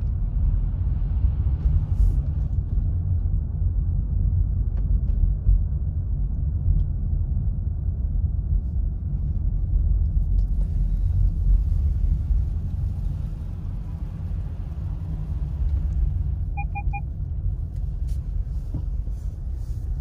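Steady low rumble of a car driving on a snow-packed road, heard from inside the cabin.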